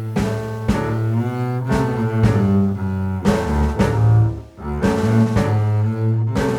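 Background music with a deep bass line and a regular beat.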